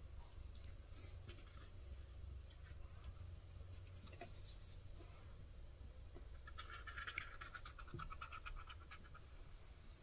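Faint scratching of a pen tracing lines on leather, with a run of quick scratchy strokes about two-thirds of the way through.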